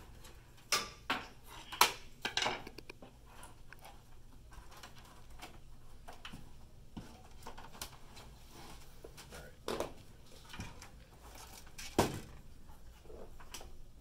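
Knocks and clatter of a metal PC case being handled and shifted on a workbench: a cluster of sharp knocks in the first couple of seconds and two more near the end, over a low steady hum.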